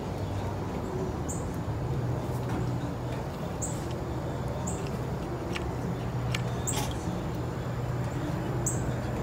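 About five short, high chirps from a small bird, one every one to two seconds, over a steady low hum, with a couple of faint clicks.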